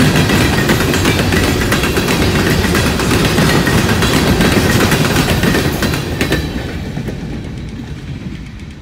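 CSX coal train cars rolling past, a steady rumble with rapid wheel clicks over the rail joints. The end of the train passes about six seconds in and the noise fades as it moves away.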